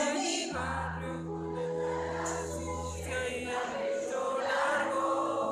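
Live band music with singing, played loud over a hall's sound system, with a long held low bass note through the first half. The recording is made from a phone within the audience.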